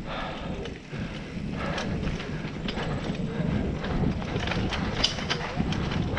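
Mountain bike riding fast down a dirt singletrack: tyres rolling over packed dirt and dry leaves, with the bike rattling and knocking over bumps and roots, and wind on the microphone.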